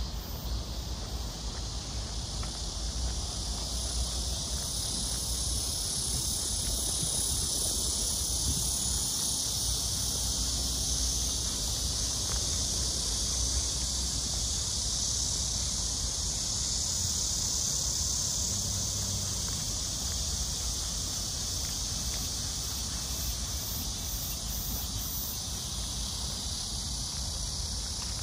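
Steady outdoor ambience: an even, high-pitched hiss over a low rumble, with no distinct events.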